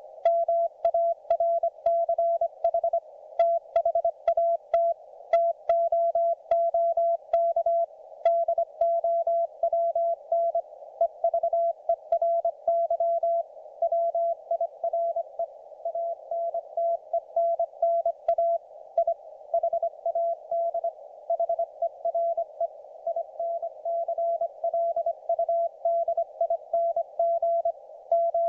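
Morse code (CW) from a YouKits HB-1B QRP transceiver on the 40 m amateur band: a single tone near 700 Hz keyed in dots and dashes during an ongoing contact. The tone sits over steady band hiss narrowed by the receiver's CW filter, and faint clicks ride on the keying for the first eight seconds or so.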